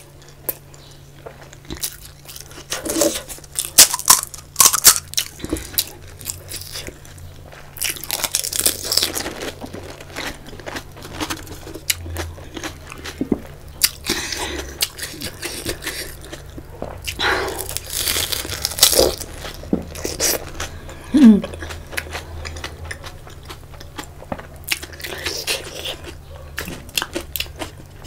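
Panipuri being eaten close to the microphone: crisp fried puri shells, filled with spicy water, crunch and crackle in repeated clusters of bites, with wet chewing between. A short hummed "mm" comes about 21 seconds in.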